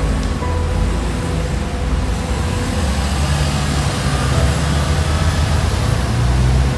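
City bus and car engines running in slow street traffic close by: a steady low rumble, with the bus's engine drone growing stronger about halfway through.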